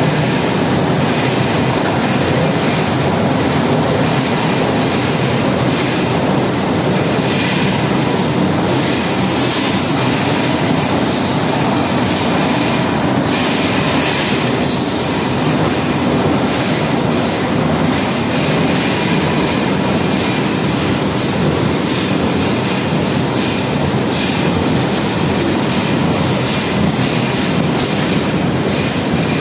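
Three-colour printing, slotting and die-cutting machine for corrugated cartons running at speed, a loud, steady mechanical noise as cardboard sheets are fed through it.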